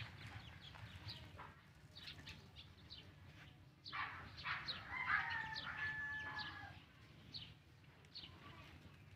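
A rooster crowing once, about four seconds in: one drawn-out call lasting a couple of seconds, among short high chirps.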